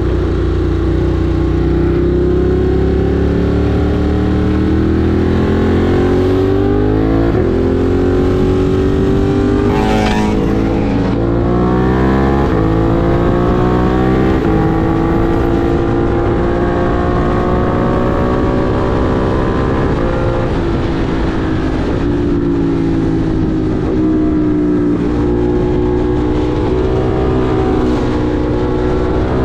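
Ducati Monster 1200 R's L-twin engine under way, its pitch rising as it pulls and dropping sharply at upshifts about seven and twelve seconds in, then rising and easing off with the throttle; a brief rush of noise cuts in about ten seconds in.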